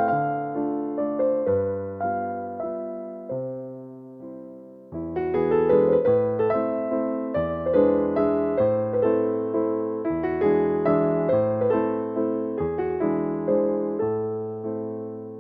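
Background music: a gentle piano or electric-piano piece, with a softer stretch that thins out a few seconds in before the playing fills out again about five seconds in.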